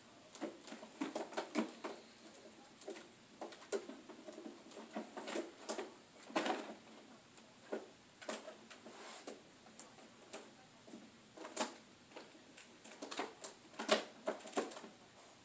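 Irregular light clicks and taps, a few a second, some sharper than others, with the loudest near the end.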